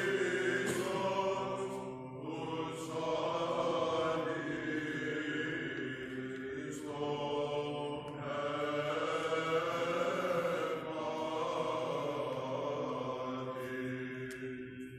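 Byzantine chant sung by a small group of male Greek Orthodox cantors and clergy: a melody over a low, steadily held drone (the ison). The phrase dies away near the end.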